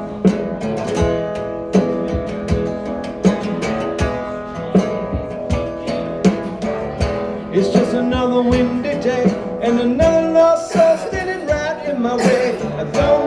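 Live song intro: a guitar strummed in a steady beat, with a wavering melody line joining in about halfway through.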